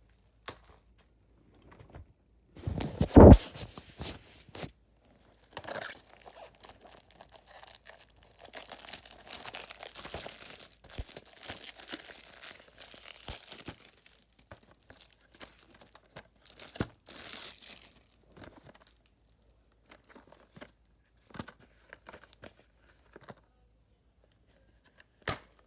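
Plastic shrink wrap being torn and crinkled off a disc case, a dense crackling that runs for about twelve seconds, then sparser rustles and clicks. A single loud thump comes about three seconds in.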